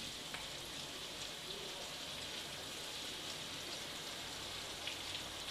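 Onions and green chillies frying in hot oil in a wok, with a steady sizzle while thick sauce is poured in.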